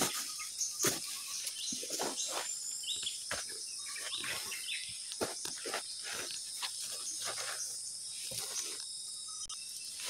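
Forest ambience: a steady high insect drone under many birds chirping and calling. Leaves and stems rustle and brush, with footsteps, as someone pushes through undergrowth.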